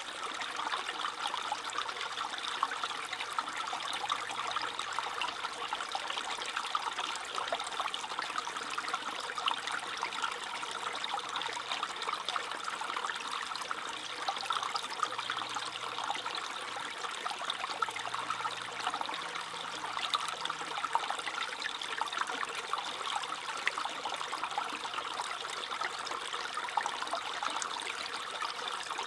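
A small stream trickling and babbling steadily over stones, a constant bright splashing with many small quick gurgles.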